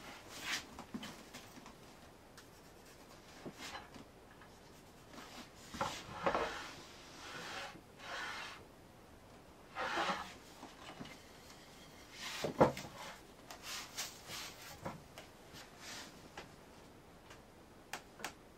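Metal hand plane taking several uneven strokes along an ash board, each a short rasping swish of the blade shaving wood, with a sharp knock about two-thirds through and a few light clicks of wood being handled near the end.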